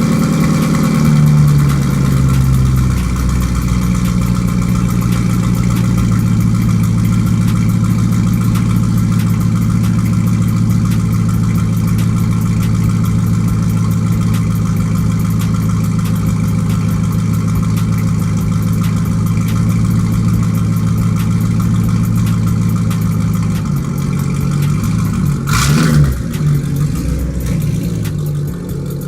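Ford Mustang with a straight-piped exhaust (mufflers removed) running loud. The engine note drops and settles in the first few seconds, then holds steady for about twenty seconds. Near the end it turns uneven with a brief loud rev, then falls back quieter.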